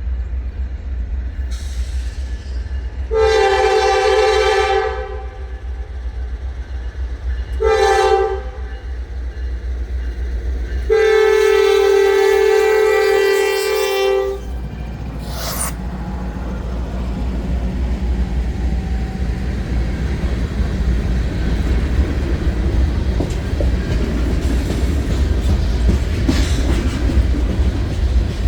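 Diesel locomotive air horn sounding for the grade crossing: a long blast, a short one, then a long one. The train then rumbles past the crossing, its wheels clacking over the rail joints.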